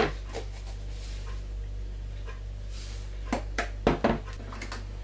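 Kitchen handling at a food processor: a few sharp clicks and taps, most of them in a cluster about three and a half to four seconds in, over a steady low hum.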